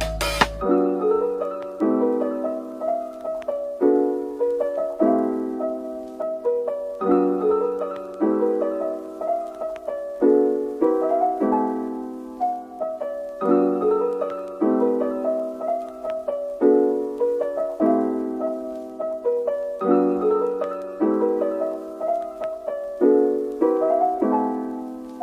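Background music: a solo piano playing a gentle repeating melody over sustained chords, the notes struck and fading in even phrases.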